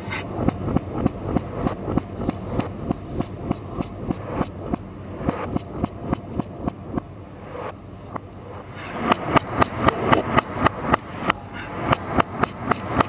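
Kitchen knife chopping vegetables on a cutting board in an even rhythm of about three strokes a second, the strokes growing louder about nine seconds in.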